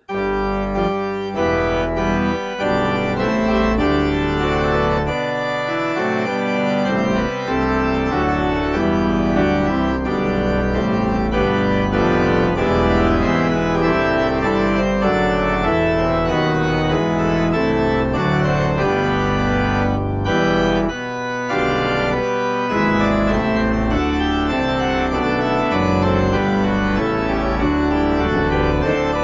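Organ playing a hymn accompaniment in sustained full chords, a backing track for a choir to sing the final verse over. The sound dips briefly between phrases about twenty and twenty-two seconds in.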